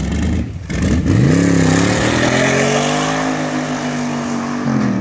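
Hot rod's engine revving hard as the car accelerates away. Its pitch climbs steeply about a second in, holds high, then drops near the end.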